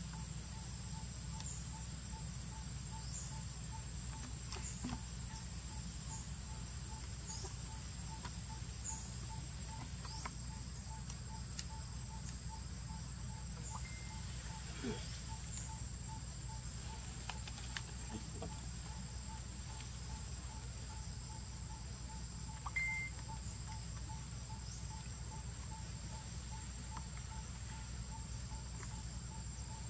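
Outdoor insect ambience: a steady high-pitched insect drone, with a soft note repeating evenly about twice a second throughout, over a low hum, and a few faint clicks.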